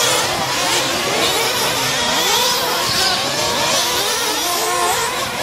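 Several 1/8-scale RC racing trucks' small engines revving and easing off as they race around the track, making many overlapping rising and falling whines.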